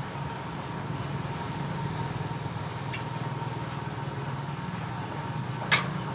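Steady low background hum with a faint steady tone, then a single sharp click near the end as the cylinder hone is handled in the engine block's bore.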